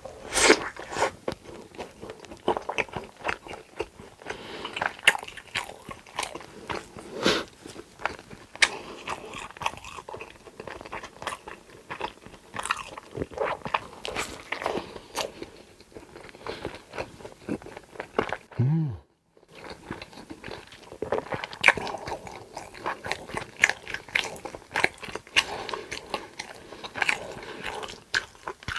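Close-miked eating: crunchy bites and chewing, with irregular crackling and mouth sounds. About two-thirds of the way through, the sound cuts out completely for under a second.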